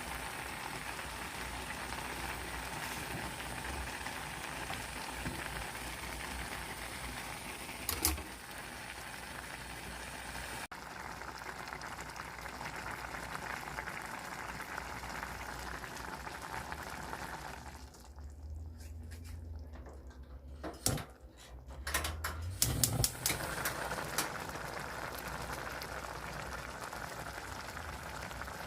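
A pot of instant ramen boiling, a steady bubbling hiss, with a sharp clink about eight seconds in. About two-thirds of the way through, the boiling drops away briefly, broken by a few knocks, then carries on.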